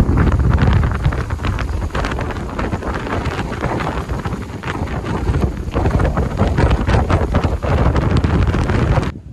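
Strong wind buffeting the microphone: a loud, gusting low rumble with frequent crackles, cutting off suddenly near the end.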